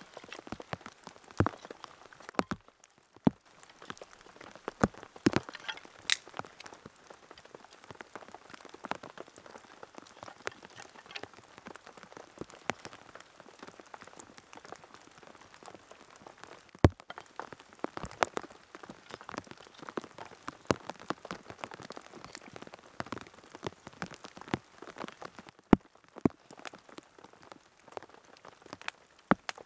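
Steady rain in a forest, with irregular sharp taps of drops landing close by, a few much louder than the rest.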